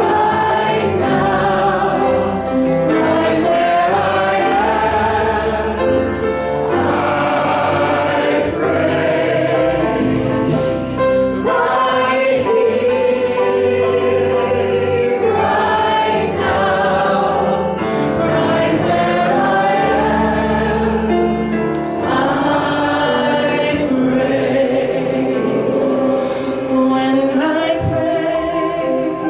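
A choir singing a slow gospel-style song over instrumental accompaniment with a bass line.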